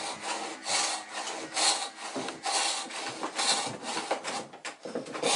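Japanese pull saw cutting through a stack of glued fir planks, rasping in steady, even strokes as it saws off the stern of a laminated hull.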